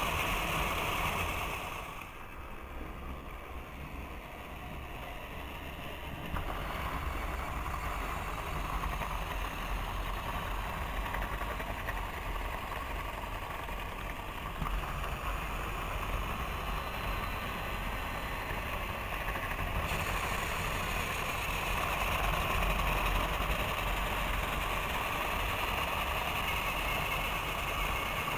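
Battery-powered toy trains running on plastic track: a steady whir from the small motors with the rattle of the cars' wheels. It dips quieter about two seconds in, then grows louder again after a few seconds as the train passes close.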